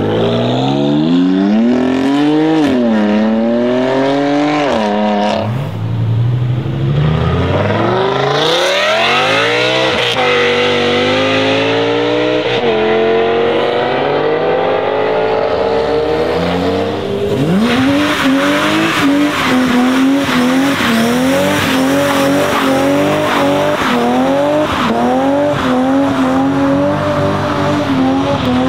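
Modified BMW M cars revving and accelerating hard in a run of short clips, the engine pitch climbing and dropping through gear changes. In the last part, a BMW E30's engine revs bounce up and down in quick succession while its rear tyres squeal in a burnout.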